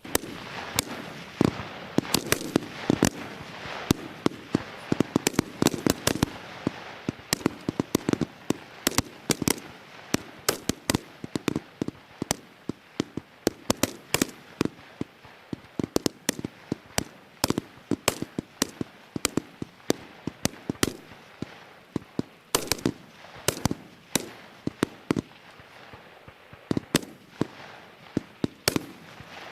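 Many M4 and M27 rifles firing single 5.56 mm shots at once along a firing line: a stream of sharp, irregular cracks from several shooters, densest in the first several seconds and then more scattered, a couple of shots a second.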